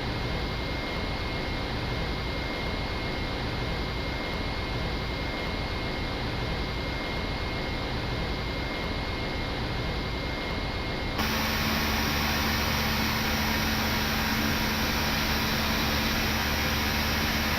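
Steady rushing cockpit noise of an Airbus A319 in flight, with a faint steady high tone. About two-thirds of the way through it cuts abruptly to a louder, brighter rush with a steady low hum.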